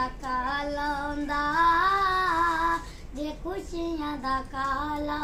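A boy singing a Punjabi song solo in a high voice. He holds a long note from about one to three seconds in, pauses briefly for breath, then starts the next line.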